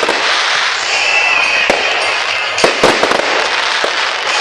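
Fireworks display: shells bursting in sharp bangs over a steady crackling hiss, with a quick cluster of bangs near three seconds and a short high whistle about a second in.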